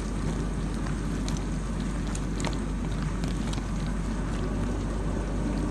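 Samsung DW80R5060US dishwasher running a diagnostic test: a steady hum from its pump with water swishing inside the tub, and a few light clicks.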